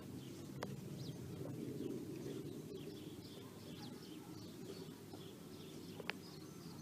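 Outdoor ambience: a steady low rumble with faint, scattered bird chirps, and two brief clicks, one just after the start and one near the end.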